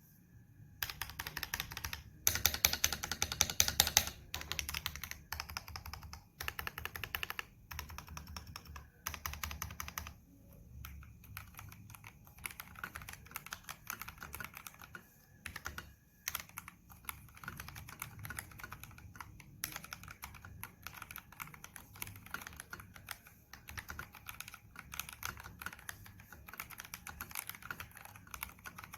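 Typing on an FL Esports FL980 v2 mechanical keyboard with stock, unmodified Kailh Box Red v2 linear switches: rapid key clacks in runs. It starts about a second in, with the loudest flurry soon after, then settles into steadier, quieter typing.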